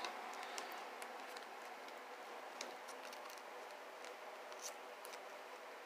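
Faint rustling and a few light clicks of a trading card being worked into a plastic binder-page sleeve, over a steady low hiss.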